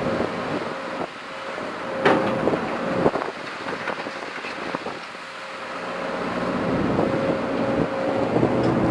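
Case CX210B hydraulic excavator running, a steady whine over its diesel engine; the engine's deep note is low at first and builds back up over the last few seconds, with a couple of sharp knocks about two and three seconds in. The mechanic suspects a noisy main hydraulic pump: the machine loses power and howls from the pump after minutes of work.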